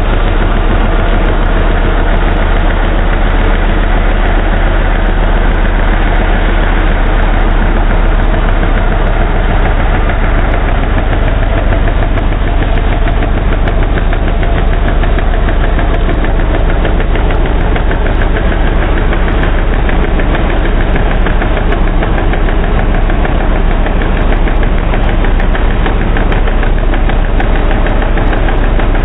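Pickup truck's engine running loud and steady through a burnout, with the rear tyre spinning against the pavement.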